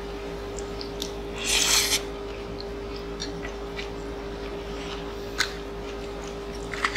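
Quiet eating sounds at a table: a fork and chopsticks lifting and handling slippery japchae glass noodles, with a few light clicks of utensils. There is a short breathy rush about a second and a half in, over a steady electrical hum.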